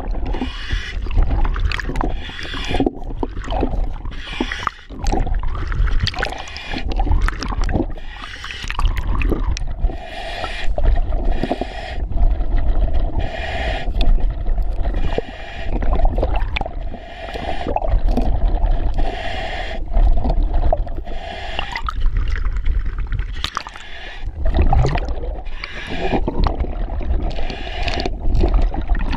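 Scuba diver breathing underwater through an EXO-26 full-face mask: a regulator hiss and rumbling exhaust bubbles with each breath, a few seconds apart, and a humming tone through the middle. Under it, a scraper works against marine growth on a mooring chain.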